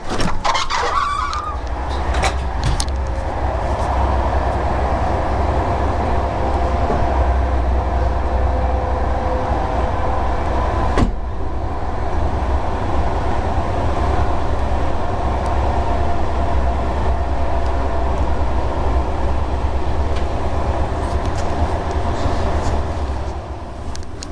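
Steady low rumble of a passenger train running at speed, heard from inside the carriage, with a faint steady hum in the midrange. A few clicks come in the first couple of seconds, and one sharp click about eleven seconds in.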